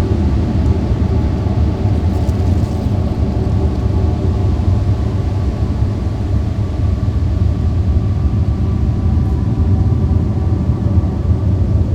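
A steady low rumbling drone with faint held tones running through it, loud and unchanging.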